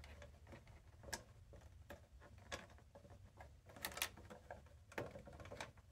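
A handful of faint, sharp clicks and small scrapes, spread out a second or so apart. They come from a push-on spade connector being worked onto the top terminal of a condensate pump's high-water-level switch.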